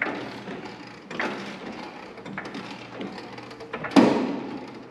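Metal knocks and clanks from tools and parts being handled while an upper control arm is taken off a car's front suspension. The loudest is a hard clank about four seconds in, which rings briefly.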